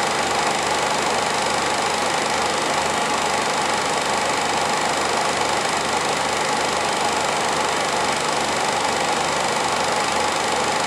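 Home-movie film projector running steadily, a constant mechanical running noise with hiss.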